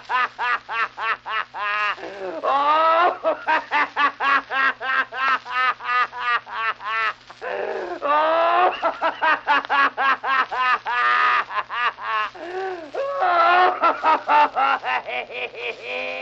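A man laughing hard and continuously in rapid ha-ha-ha bursts, about five a second, breaking off for a breath three times before starting again.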